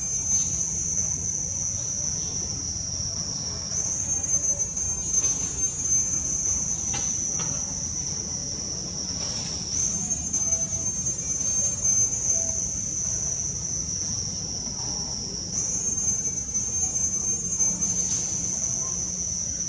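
Insect chorus of crickets or cicadas: a steady high-pitched buzzing drone that dips and swells again about every six seconds, over a low background rumble.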